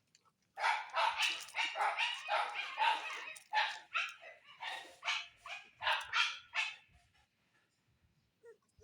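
A dog barking in a fast run of barks, about two to three a second, starting about half a second in and stopping about seven seconds in.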